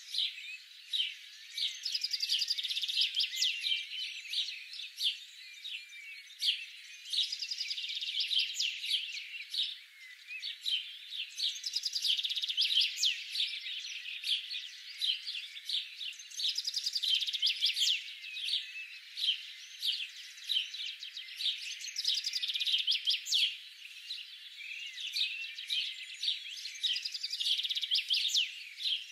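Songbirds chirping and trilling, many short calls overlapping in a continuous chorus, thin and high with no low sound beneath it.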